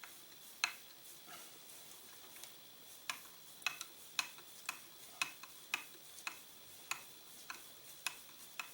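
Faint, sharp clicks as a screwdriver backs out the long screw holding the forend stock of a Circuit Judge, a few scattered at first, then a steady tick about twice a second from about three seconds in.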